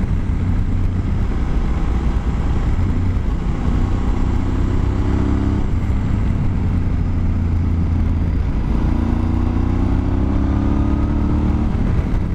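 Honda Varadero XL1000's V-twin engine under way, pulling up in pitch twice: the rise breaks off and drops about six seconds in and again near the end. Steady wind rush runs under it.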